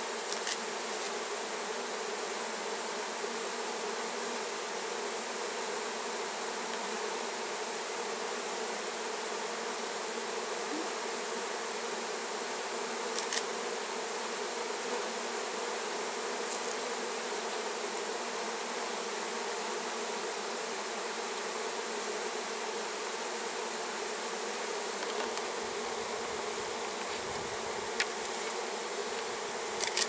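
Steady buzzing drone of a large mass of honeybees flying around their disturbed nest as a feral colony is being cut out, with a few short taps.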